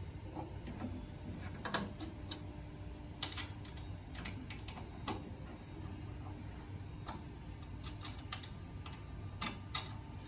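Scattered small irregular clicks and taps of a hex (Allen) key working the screws of a rack, over a steady low hum.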